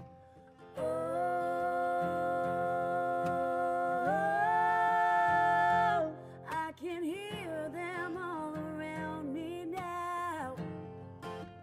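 A man and a woman singing long, wordless held notes in harmony over strummed acoustic guitars. The held note begins just under a second in and steps up about four seconds in, then gives way to wavering, sliding phrases that trail off near the end.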